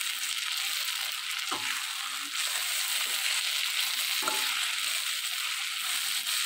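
Sliced onions and turmeric sizzling in hot mustard oil in a steel kadhai, stirred with a perforated steel spoon that knocks against the pan a few times over a steady hiss.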